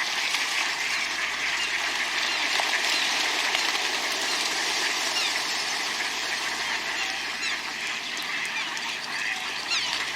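A flock of ducks quacking and splashing in water, a dense continuous din of many overlapping calls that eases slightly near the end.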